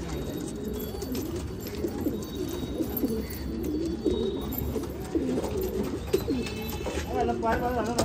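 Several domestic pigeons cooing, their low coos overlapping one after another.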